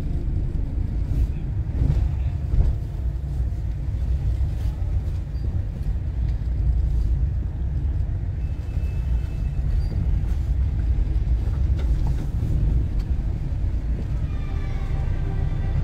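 Inside a moving car's cabin: a steady low rumble of engine and road noise as the car drives along.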